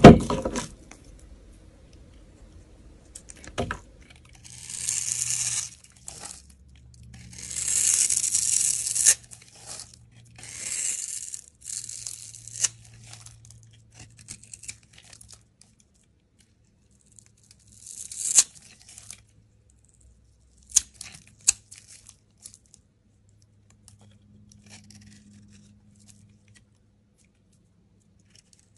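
A snap-off utility knife blade cutting and shaving a bar of soap in about five scratchy, crumbling strokes of a second or two each. A sharp crack comes right at the start, and the later part holds only light scattered ticks.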